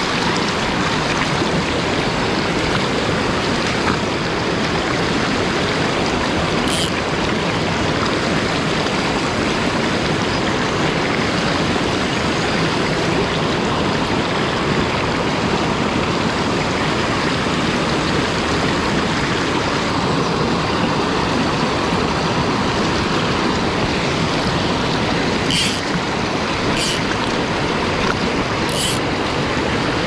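Small mountain headwater stream running fast over rocks, a steady close rush of water, with a few short clicks near the end.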